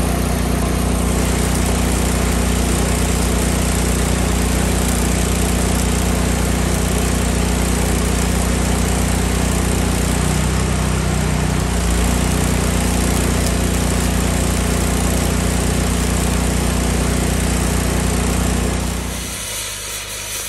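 An engine runs steadily at a raised speed and drops back about a second before the end.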